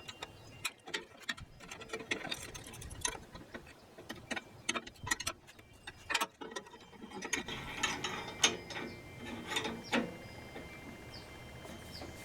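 Irregular clicks and metallic rattles of bandsaw circle-cutting jig parts being fitted and tightened down by hand. They come thicker and busier for a couple of seconds about two-thirds of the way through.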